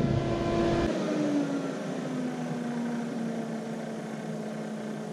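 Fan of a Mosquito Magnet Patriot Plus trap running with a steady hum. About a second in, the hum slides lower in pitch over a few seconds, as the fan slows during the trap's startup cycle.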